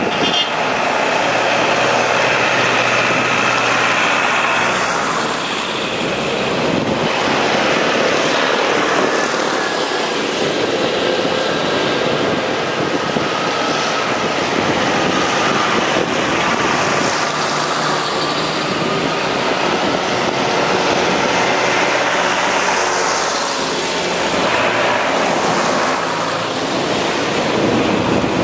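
Tractor engines running as tractors drive past one after another, with the engine note falling in pitch as one goes by about five seconds in and again near the end.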